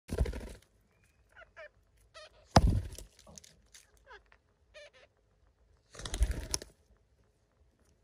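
Alexandrine parakeets giving short, scattered calls, about six in all, between three louder rustling thumps, the sharpest about two and a half seconds in.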